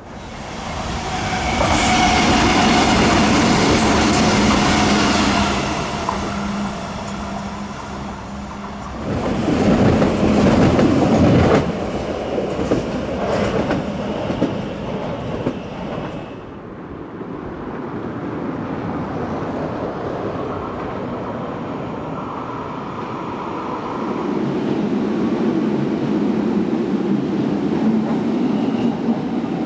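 CP Class 3400 electric multiple unit running through the station, with a steady motor whine and a run of sharp clicks from its wheels over the rails and points, loudest about ten seconds in; the rumble builds again near the end.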